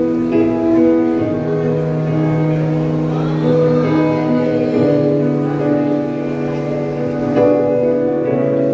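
Instrumental music of sustained, held chords that change every few seconds, with no singing.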